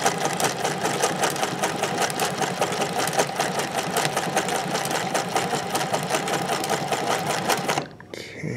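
Vintage sewing machine running steadily at speed with a rapid, even clatter of needle strokes as it sews a dense zigzag satin stitch. It stops suddenly near the end.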